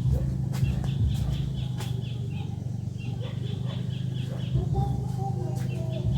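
Chickens clucking and calling over a steady low hum, with a rapid high chirping that comes and goes.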